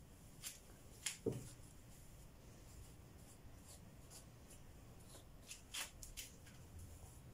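Faint handling sounds of hair and clothing being moved: a few short sharp clicks and rustles, with a soft knock about a second in and another small cluster of clicks near the end.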